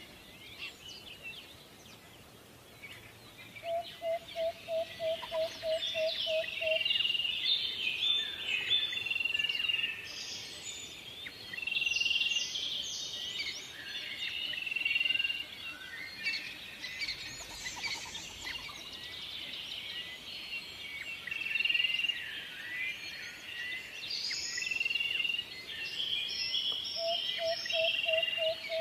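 Several birds chirping and singing, with quick trills and short whistled notes overlapping throughout. A run of about ten low, evenly spaced notes, about three a second, comes about four seconds in and again near the end.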